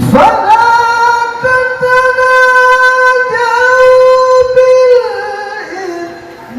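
Male Qur'an reciter chanting in melodic tilawah style, holding one long, high, ornamented note. About five seconds in the note slides down and fades as the phrase ends.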